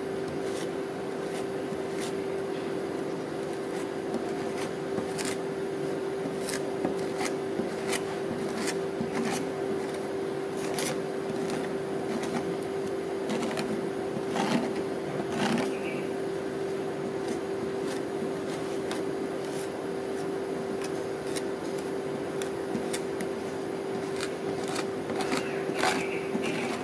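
A metal spatula scraping and tapping irregularly on the frozen steel pan of an ice cream roll machine as it spreads the ice cream mixture flat, over the machine's steady hum. A few louder scrapes come about halfway through.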